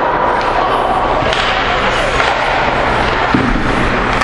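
Ice hockey play in an indoor rink: skates scraping the ice and sticks and puck clacking, over a steady murmur of crowd voices, with a thud about three and a half seconds in.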